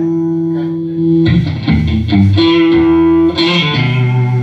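Amplified electric guitars noodling while the players get their tone right: a long sustained note, then a few shorter guitar and low bass notes about a second in, and another held note.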